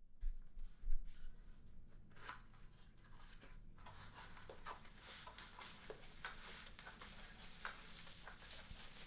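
Light knocks as a small cardboard box is picked up from a wooden desk, then the crackle of its flaps being pulled open, followed by continuous crinkling of plastic bubble wrap as the item inside is unwrapped.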